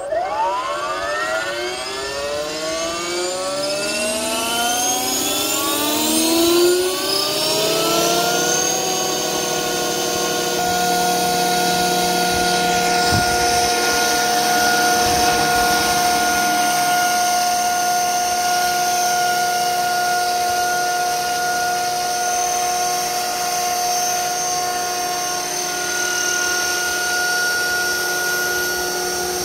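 Electric RC helicopter (Align T-Rex 500 under an EC135 scale body with a four-blade rotor head) spooling up: a motor, gear and rotor whine rising steadily in pitch for about the first eight seconds. It then holds a steady pitch at flying rotor speed.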